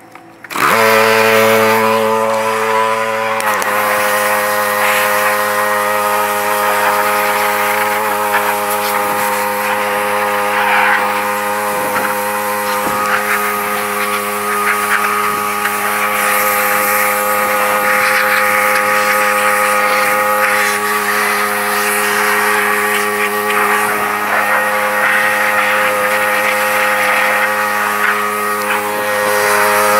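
Small gasoline engine of a pressure washer starting about half a second in, then running steadily. Its pitch drops slightly a few seconds in as the pump comes under load, with the hiss of the spray jet over it.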